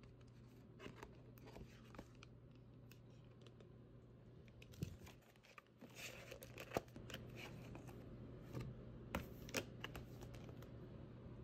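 Faint scattered clicks and rustles of small objects being handled, the loudest about five and seven seconds in and a cluster near the end, over a low steady hum.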